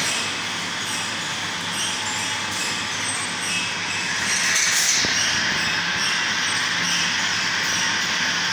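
Automatic stick ice cream production machine running: a steady mechanical clatter and hiss from its mould conveyor and pneumatic mechanisms, with one sharp click about five seconds in.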